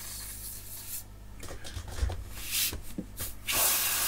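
Can of freeze spray hissing in short, uneven bursts through its straw nozzle as it is coaxed to spray, with a light knock about halfway through. The spray is being used to chill parts of an LCD driver board to track down an intermittent fault, suspected to be a bad capacitor.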